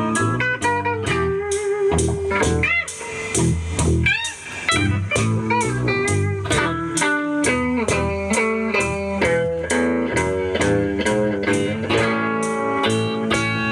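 Blues guitar playing over a steady beat, with bent notes gliding in pitch about three and four seconds in.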